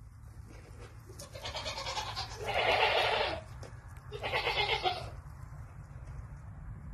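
Newborn spotted piglets squealing: three cries about a second each, the middle one the loudest.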